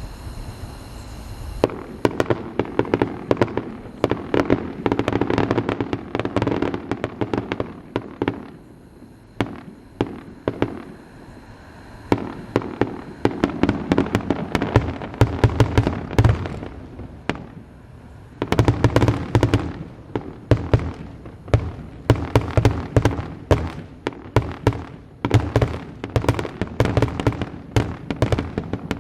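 Aerial fireworks exploding in quick, overlapping volleys of sharp bangs and deeper booms, starting about two seconds in and thinning in two short lulls.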